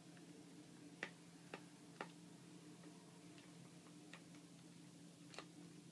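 A few faint, sharp clicks at uneven intervals, three close together about a second in and one more near the end, over a steady low hum.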